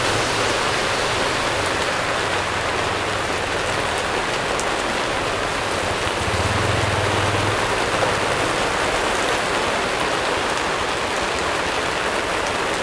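Heavy rain pouring down steadily as an even hiss, with a brief low hum about halfway through.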